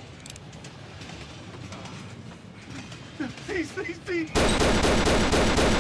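A man's short strained cries, then, about four seconds in, a sudden loud burst of rapid gunfire, a handgun fired over and over in quick succession for about a second and a half.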